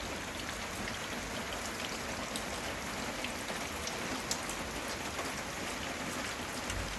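Steady rain falling, with scattered single drops ticking close to the microphone.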